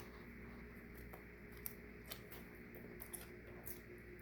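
Faint chewing of a lettuce-filled rice paper spring roll: a few soft, scattered clicks and crunches over a low, steady room hum.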